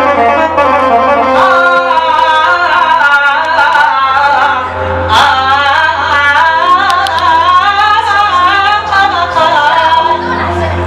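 A male singer performing an Iraqi mawwal, a long, ornamented vocal line that bends up and down in pitch, over sustained instrumental backing.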